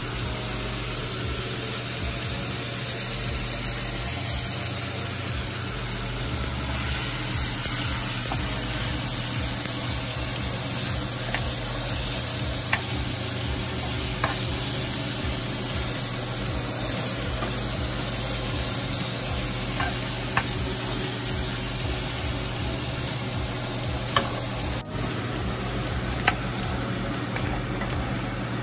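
Seasoned shrimp sizzling in olive oil in a skillet over medium-high heat, lightly sautéed and stirred with a wooden spatula that clicks against the pan now and then.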